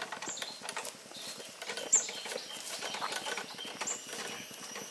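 Footsteps and light rustling and rattling on a dirt path, with short high chirps recurring about every two seconds.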